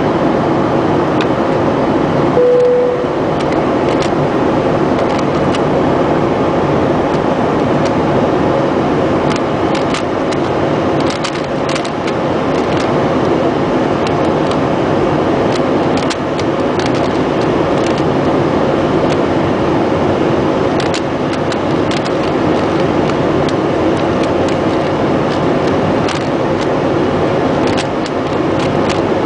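Steady, loud drone of an airliner cabin in flight, from engine and airflow noise, with scattered light plastic clicks of a Rubik's Cube being turned by hand. A short steady tone sounds briefly about two and a half seconds in.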